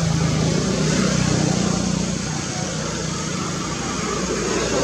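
Steady low hum of a motor vehicle engine running, easing off about halfway through.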